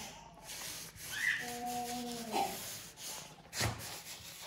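A kitten scuffles with a plush slipper on a wooden floor, its claws and fur scratching and rubbing against the fabric. Midway there is a short held voice-like tone, and near the end a single sharp knock.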